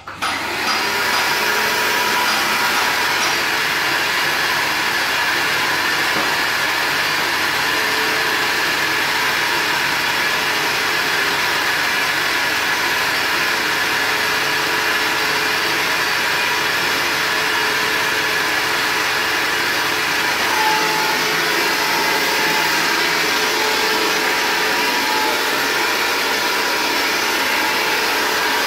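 Vacuum cleaner switched on at the start and running steadily with a constant loud whoosh, used with a hose to clear dust from a window frame before painting.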